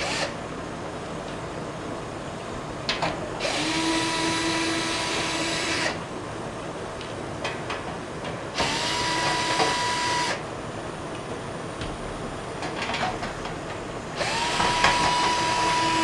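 Cordless drill/driver with a quarter-inch nut-driver bit backing out the screws of a dishwasher's lower kick panel. It runs three times for about two seconds each, every run a whine that rises quickly and then holds steady, the last one near the end.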